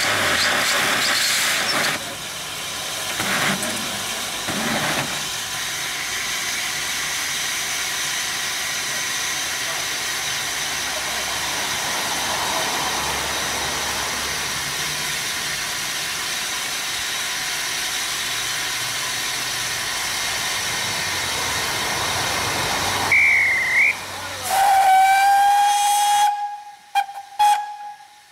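Beyer Peacock narrow-gauge steam tank locomotive 'The Earl' standing with steam hissing steadily. Near the end a brief warbling high whistle is followed by the locomotive's steam whistle sounding one note for a second or two, then a few short sharp sounds as the hiss stops.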